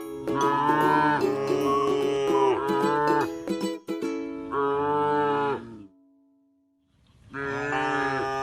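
Cow mooing in several long calls with a short break between them, over ukulele background music.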